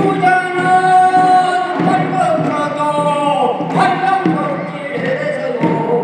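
A singer's voice holds one long drawn-out note in a Korean traditional farming work song (deulsori), the pitch bending down near the end, then starts a new held note about four seconds in.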